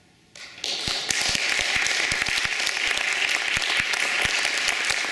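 Audience applauding after a piano performance: clapping breaks out about half a second in, swells within a second and continues as steady, dense applause.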